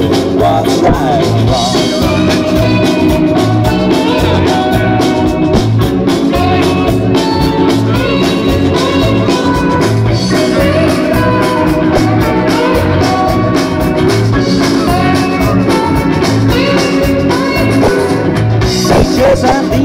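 Live band playing a song through a stage PA: electric guitars, bass guitar and keyboard over a steady beat, with a sung vocal.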